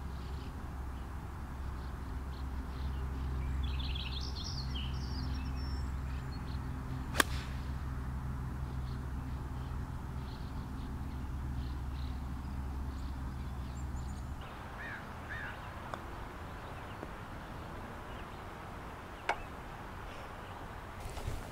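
Golf-course outdoor sound: a steady low hum that stops about two-thirds of the way through, a few bird chirps, and two sharp clicks, the louder one about a third in and a fainter one near the end.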